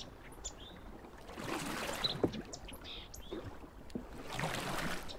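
Kayak paddle strokes: the blade dipping and pulling through calm water in two swishing swells about three seconds apart, with dripping from the blades between them.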